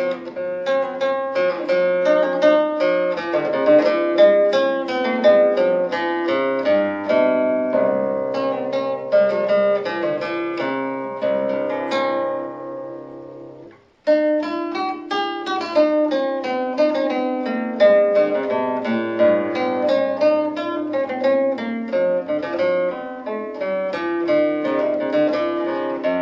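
Background music of a plucked guitar picking a quick melody of many short notes. About halfway through it fades away and then starts again suddenly.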